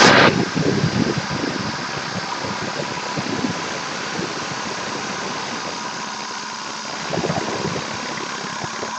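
Wood lathe spinning a spindle at about 2000 rpm while a CNC back-knife cuts along it: a steady machine whir with a rough, uneven rasp of the knife shaving wood. A louder rush of noise at the very start drops away within the first half-second.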